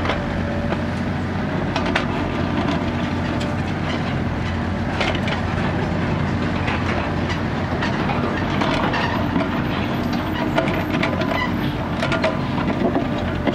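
Kubota mini excavator's diesel engine running steadily under digging load, with scattered knocks and scrapes as the bucket tears into dry soil and stones, more of them in the second half.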